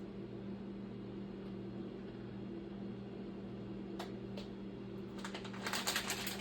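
Steady low electrical hum in a kitchen, with two light clicks about four seconds in and a second of crackly rustling near the end.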